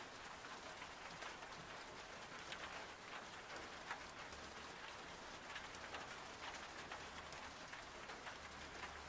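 Faint steady rain from a background rain-sound track, an even hiss with scattered light drop ticks.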